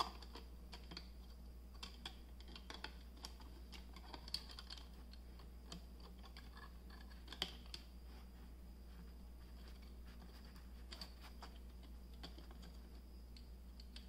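Faint, irregular clicks and taps of 3D-printed plastic rings and small plastic pieces being handled and pressed into place, with a few sharper clicks among them.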